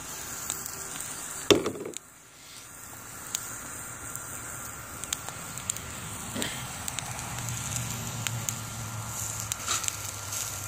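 Wood fire burning hard in a BioLite CampStove under a grill, crackling, with scattered sharp pops, one louder pop about a second and a half in.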